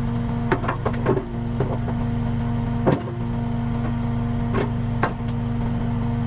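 Engine running at a steady speed with a constant hum, with scattered sharp knocks and clanks.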